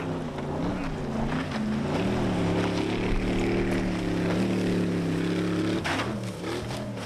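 Stunt speedboat's engine running at high speed across the river, its note rising about two seconds in and then holding steady. About six seconds in the engine note drops under a short burst of rushing noise.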